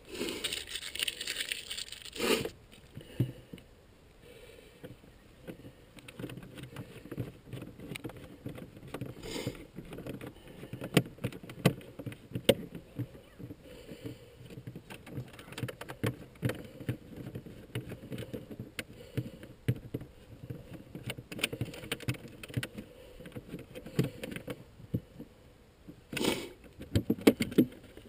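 Handling noise from an RC boat's hull and hatch cover being moved about: irregular clicks and knocks throughout, with a burst of rustling near the start and again near the end.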